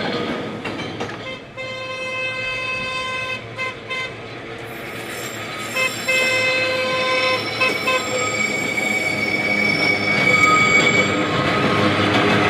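Manx Electric Railway No. 34, a diesel-converted works locomotive, sounds two long horn blasts as it approaches over the low running of its engine. From about eight seconds in, a steady high squeal follows as its wheels take the curved track.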